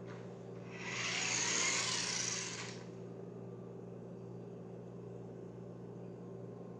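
Battery-powered remote-control toy car's electric motor whirring as it drives across the floor, rising about a second in and fading out after about two seconds.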